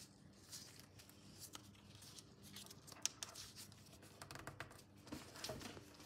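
Faint rustling and crinkling of a sheet of paper being folded and creased by hand, with small scratchy fingertip strokes and one sharp tick about three seconds in.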